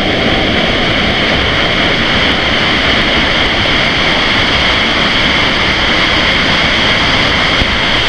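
Small waterfall falling steadily into a shallow rock pool: a loud, even splashing rush of water.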